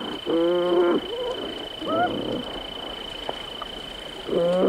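Beaver kits whining: about four short, wavering, cry-like calls, the longest about half a second in and another near the end.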